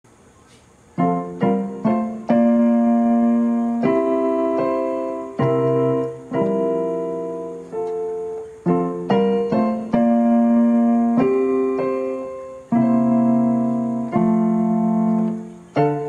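Instrumental background music: slow chords struck and left to ring and fade, starting about a second in.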